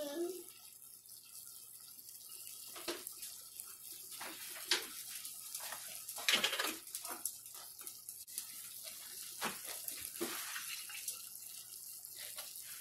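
Tap water running into an emptied glass jar of Alfredo sauce, fairly faint, with a few scattered knocks.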